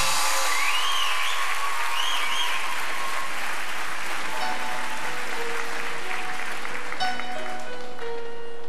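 Studio audience applauding while a soft band intro begins, with held notes coming in under the clapping and plucked guitar chords near the end.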